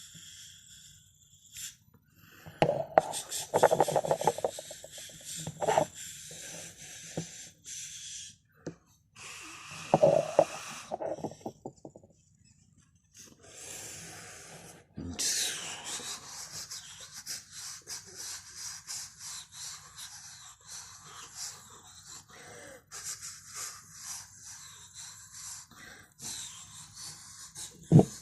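Close-up mouth and breath noises made as sound effects: sharp clicks and pops in the first half, then a long breathy hiss with small clicks from about halfway through.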